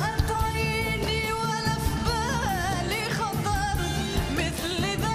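A woman singing a Khaleeji song in an Eastern tarab style, her voice ornamented and wavering with vibrato, over a live band with steady percussion.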